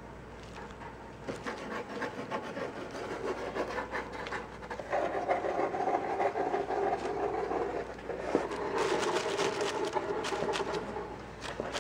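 Tissue paper rustling and crinkling, with claws scratching on cardboard, as kittens move about in a box, in many short crackles from about a second in. From about five seconds in, a steadier droning sound joins and comes and goes.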